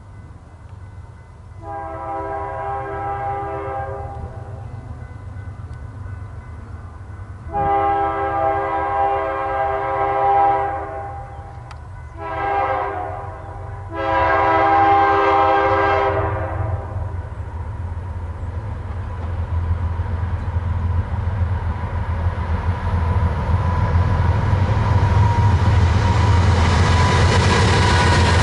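BNSF diesel locomotive air horn sounding the grade-crossing signal: two long blasts, a short one and a final long one, as the train approaches. After the horn, the low rumble of the locomotives and the noise of the wheels on the rails grow steadily louder as the lead units pass close by near the end.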